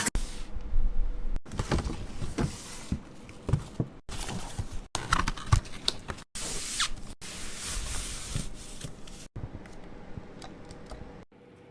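Close-up handling sounds of small things being opened: a mini fridge door, the flaps of a cardboard box and the lid of a music box, with scraping, rustling and short clicks. The sounds come in short clips, each cut off suddenly by a brief silence.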